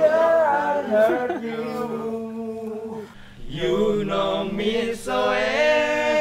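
Several young men singing a pop love song together without instruments, holding long notes, with a short break about three seconds in.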